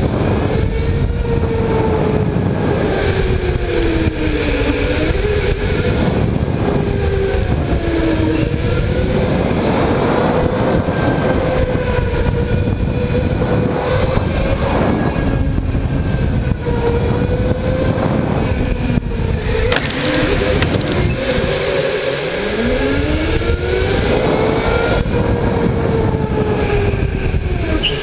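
Electric go-kart motors whining, the pitch rising and falling as the karts speed up and slow through the corners, over a steady rumble of tyres on the track. Late on, one whine climbs from a low pitch as a kart accelerates hard.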